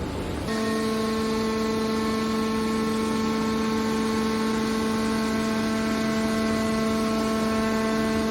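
Hydraulic can baler's pump motor running, a steady hum with a whine in it that starts abruptly about half a second in and holds an unchanging pitch.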